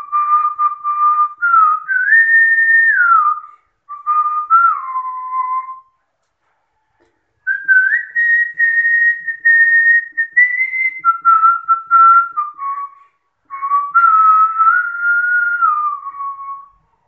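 A person whistling a melody in long phrases with short breaks for breath. The tune moves between held notes and slides down at the end of most phrases.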